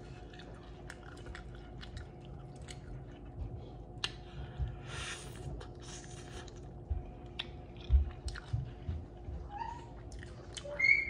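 Close-miked mouth sounds of someone eating sauce-covered chicken wings: chewing with many small wet clicks and lip smacks, and a couple of hissy sucking slurps about five seconds in as sauce is sucked off the fingers. A few soft low thumps follow, the loudest about eight seconds in, and a short hum near the end.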